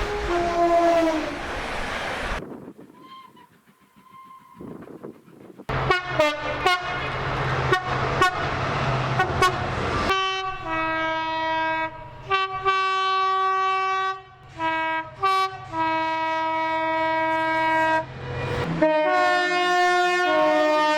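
A run of train horn clips, one after another. First, horn notes dip in pitch over rumbling. After a short quieter stretch, a train runs by with rhythmic clattering wheels and horn tones. Then a multi-tone horn sounds a long series of blasts that step between different notes, like a tune.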